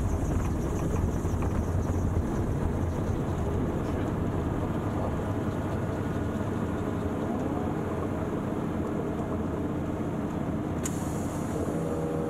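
AutoGyro Calidus gyroplane on the ground after landing, heard from the cockpit: engine idling, with the rotor still turning and wind noise over the microphone. A sharp click comes about eleven seconds in, after which a steadier low hum sets in.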